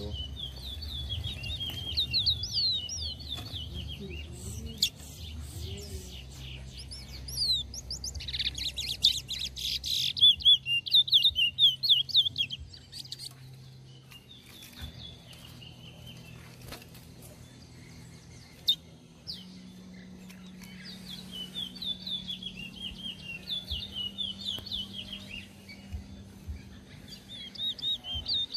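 Caged towa-towa (chestnut-bellied seed finch) males singing against each other in fast, sweet warbling phrases. The song comes in bouts, loudest and densest about eight to twelve seconds in and picking up again from about twenty seconds.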